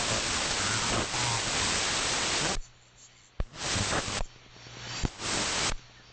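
AM shortwave receiver audio on the 75 m band (3885 kHz): loud band static with a faint voice buried in it. About two and a half seconds in, a station's carrier comes on and the hiss quiets to a low hum. The static bursts back twice briefly, each time after a sharp click, as the carrier drops out and returns.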